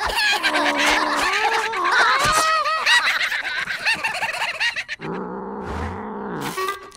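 Cartoon cockroaches' high, squeaky chattering, full of quick rising and falling pitch swoops. About five seconds in it gives way to a lower, steadier sound.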